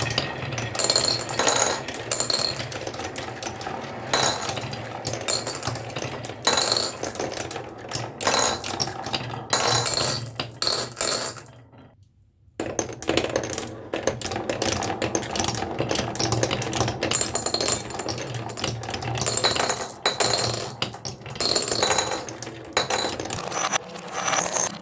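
Marbles rolling and clattering down a HABA wooden marble run: a steady rolling rumble with dense clicks and knocks as they hit the track and each other. The sound stops for a moment about halfway through, then starts up again.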